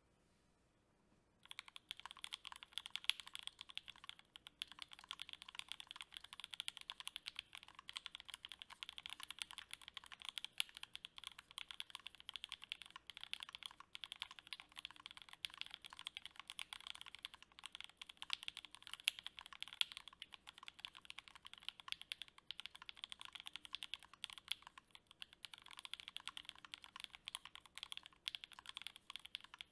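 Continuous, dense typing on a KBDFans D60 HHKB-layout custom mechanical keyboard with C3 Equalz Tangerine linear switches on an FR4 plate and GMK Laser doubleshot ABS keycaps. The typing starts about a second and a half in, after near silence.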